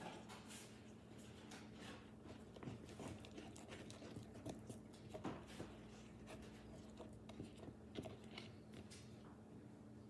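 Faint scraping and clicking of a stirring stick working a thick paint-and-Saltwash mixture in a plastic cup, in short irregular strokes.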